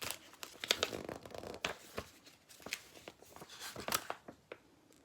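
Packaging being handled: a run of paper and plastic rustles, crinkles and small clicks, which stops about four and a half seconds in.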